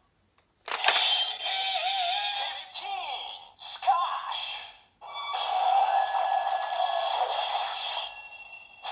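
DX Fifteen Lockseed toy playing its electronic transformation sound, made only of sound effects, through its small speaker. A sharp hit about a second in is followed by warbling, gliding tones, then a steadier electronic sound that fades near the end.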